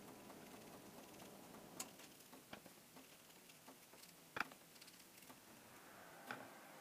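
Faint, sparse taps and clicks of an aqua painter water brush dabbing colour onto watercolour card, the loudest click about halfway through.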